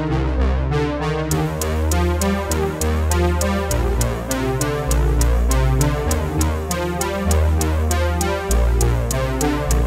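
Background electronic music: synthesizer over a deep bass line, with a steady drum-machine beat coming in about a second in.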